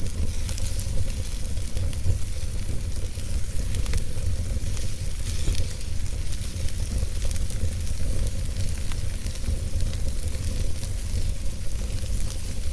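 Wood fire burning in a fireplace: a steady low rumble with scattered small crackles and pops throughout.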